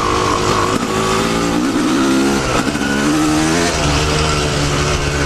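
Yamaha YZ250 single-cylinder two-stroke dirt bike engine under way, its revs rising and falling with the throttle before settling into a steadier, lower note in the second half.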